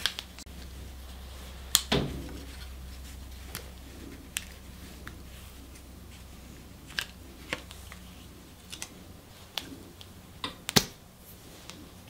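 Hard plastic clicks and handling as a GoPro Hero 7 Black is unlatched from its plastic mounting frame and its side door is pried open. There are a handful of sharp clicks, the loudest a little before the end, over a low steady hum that dies away about two-thirds of the way through.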